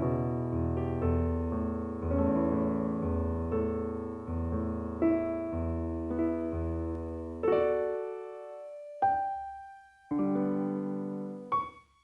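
Background piano music: sustained chords, thinning in the second half to a few single notes and a chord that ring out and fade.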